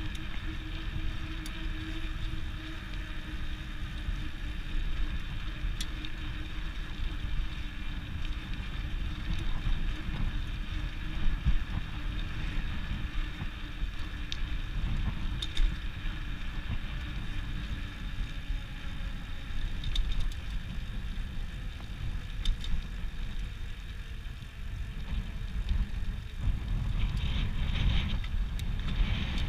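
Bicycle riding along an asphalt trail into a headwind: wind rumbling on the handlebar camera's microphone over steady tyre noise, with occasional light ticks and rattles from the bike. It grows louder and rougher near the end as the bike rolls over a road crossing.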